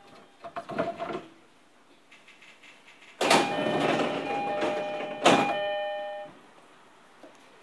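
Door chime of an E231 series commuter train: a repeated two-tone electronic chime that starts suddenly, together with the rush and thud of the sliding doors opening, and cuts off after about three seconds. A few knocks come shortly before it.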